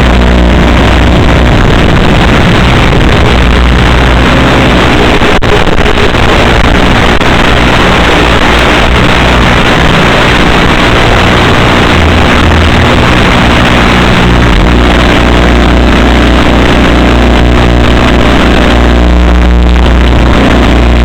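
Electric motor and propeller of an FPV flying wing running steadily, heard loud and close with a dense rush of wind noise over it.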